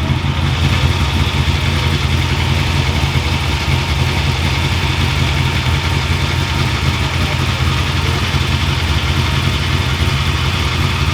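An engine idling steadily with a deep, even rumble and no revving.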